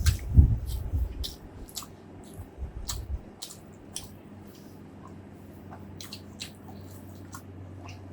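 Close-miked eating sounds: wet mouth clicks and smacks from chewing food, with a run of low, muffled thumps in the first three seconds.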